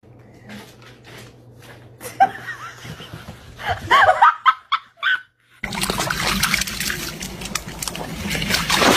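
A person laughing in short bursts. Then, after an abrupt cut, a steady noisy wash of water as a dog swims through a lake.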